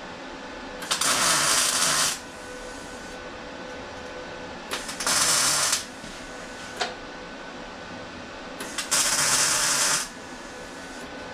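Three short tack welds on a sheet-metal panel, each about a second of arc crackle and hiss, spaced about four seconds apart.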